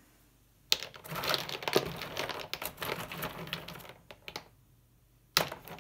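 In-shell walnuts clattering against each other in a cardboard box as a hand rummages through them: a dense run of clicks for about four seconds, then a sudden clatter near the end.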